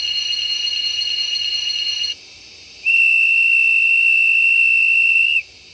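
Steam-locomotive whistle from a model train's DCC sound decoder: a long, high whistle mixed with a hiss of steam that cuts off about two seconds in. After a short pause comes a second long whistle, cleaner and steadier, that stops shortly before the end.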